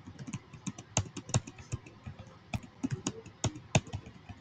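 Computer keyboard being typed on: a run of irregular, sharp key clicks, several a second, as a terminal command is typed and edited.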